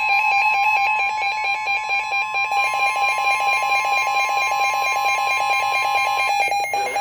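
Emergency Alert System attention tone: one steady, high electronic tone that cuts off about six seconds in, sounding over a second, rapidly pulsing electronic tone.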